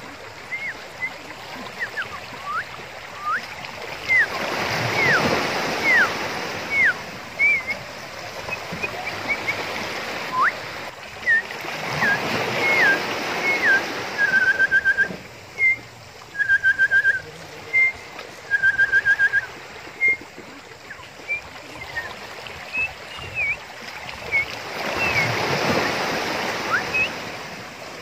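Sea waves washing in over shore rocks, swelling three times. High whistled chirps run over them throughout: short rising and falling notes and three brief rapid trills.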